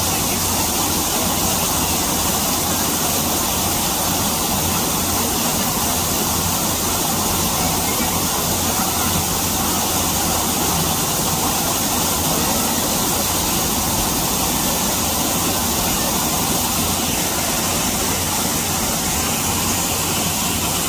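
Steady rushing noise at a constant level, with no distinct events.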